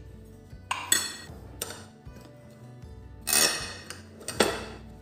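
Glass jar and glassware clinking and knocking: four sharp knocks, the loudest about three seconds in with a short glassy ring.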